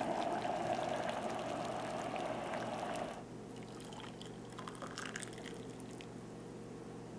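Just-boiled water in an electric hot pot hissing steadily, stopping about three seconds in. Then hot water is poured from the pot into a ceramic mug.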